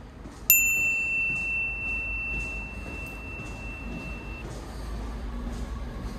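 A bell struck once, ringing with one clear tone that dies away over about four seconds, over the low rumble of a train.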